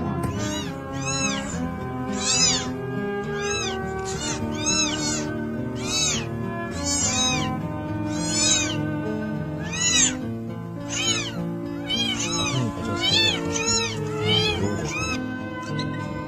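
Newborn kittens mewing over and over: short, high, squeaky mews, one or two a second, over background music.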